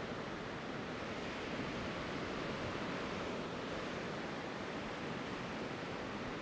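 Ocean surf breaking, heard as a steady, even wash of noise with no separate crashes standing out.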